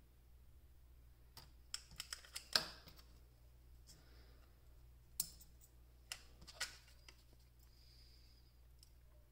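Handheld spot welder's probes welding nickel strip onto 18650 lithium-ion cells: sharp snapping clicks in two clusters, the loudest about two and a half seconds in.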